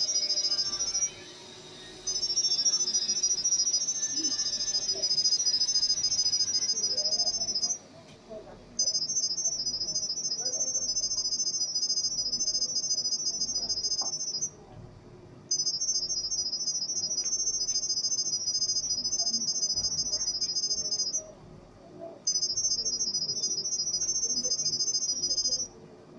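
A smartphone speaker plays an IP camera's sound-wave Wi-Fi pairing signal. It is a rapid, high-pitched warbling chirp that carries the network details for the camera to pick up. The chirp comes in runs of about six seconds with a pause of about a second between them.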